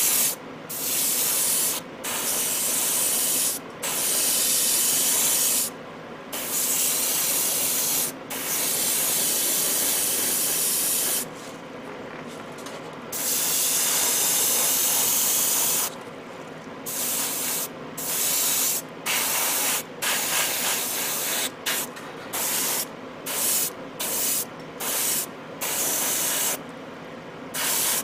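Airbrush spraying thinned model paint in on-off bursts of hiss as the trigger is pressed and released. The bursts last a second or more in the first half and become shorter and quicker in the second half.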